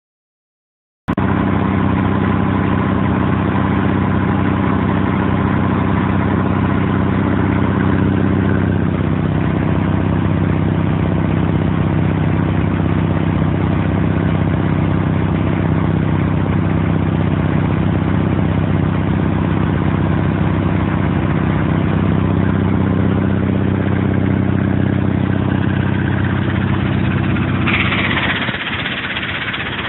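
Ingersoll Rand 25T2 three-stage piston air compressor, driven by a 30 HP three-phase electric motor, running with a steady mechanical drone that cuts in abruptly about a second in. Near the end a hiss starts and the low drone drops away.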